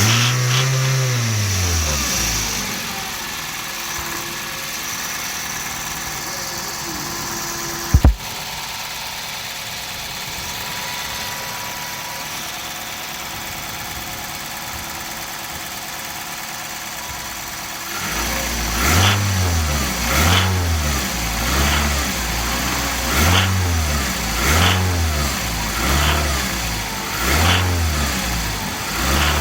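Toyota 1AZ-FSE 2.0-litre inline-four engine with a knock. It is revved once and settles, runs steadily with one short loud bump about 8 seconds in, then from about two-thirds of the way through is blipped on the throttle repeatedly, roughly every second and a half.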